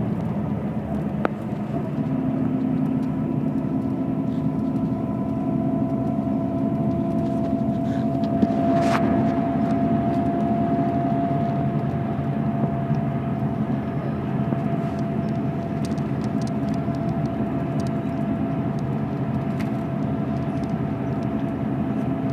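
Steady interior noise of a moving road vehicle: engine and tyre drone with a thin, steady whine above it, and a brief sharp click about nine seconds in.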